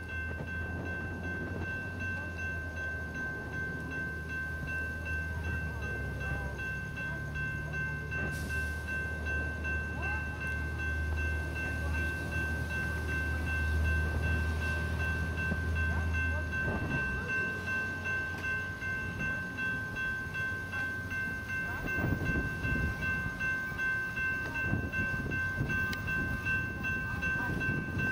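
Railroad grade-crossing warning bells ringing steadily, signalling an approaching train, over a low hum that stops about two-thirds of the way through.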